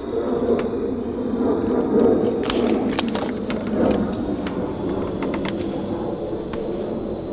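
Door being opened by its lever handle, the latch and handle clicking and rattling in a cluster of sharp clicks around the middle and a few more soon after, over a steady low rumbling noise.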